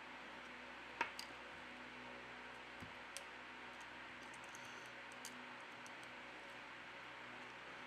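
A few faint, small clicks over a steady hiss: the Lenovo Phab 2 Pro's flex cable connectors being pressed onto their sockets on the motherboard, the sharpest click about a second in.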